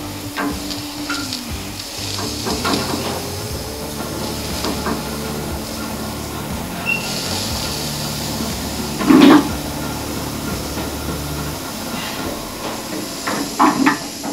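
Two-post car hoist's electric hydraulic pump running for several seconds as the arms rise, with the safety catches clicking on the columns. A loud clunk comes about nine seconds in, and the pump stops a couple of seconds later.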